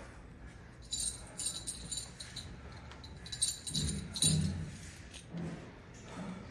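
Light metallic jingling and clinking: a run of quick rattles for about two and a half seconds, followed by a few low, dull thuds about four seconds in.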